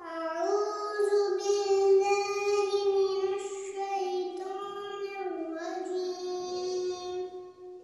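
A young girl's voice chanting Quranic recitation in Arabic, in long held, melodic notes.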